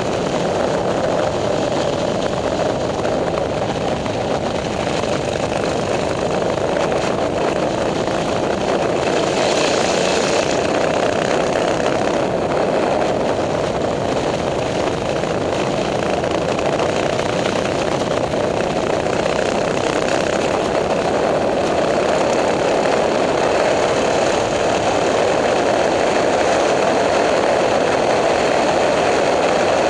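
Small single-cylinder four-stroke minibike engine running steadily at cruising speed, mixed with a rushing noise of wind on the microphone.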